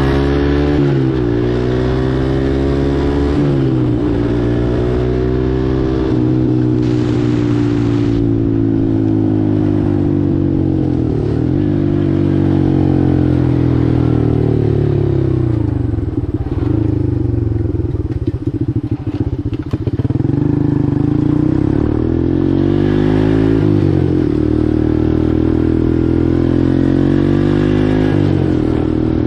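Four-wheeler (ATV) engine running under way, its pitch rising and falling several times as the throttle opens and closes. About two-thirds of the way through it drops to a low, uneven putter before pulling away again.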